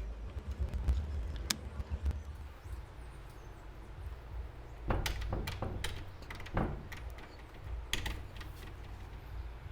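Door lock hardware being handled: a few sharp clicks and clacks, one about a second and a half in and small clusters around five, six and a half and eight seconds in, over a low rumble.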